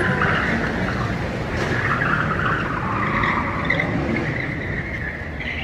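Car tyres squealing and skidding over low engine rumble as cars are driven hard in a staged police chase down a steep street.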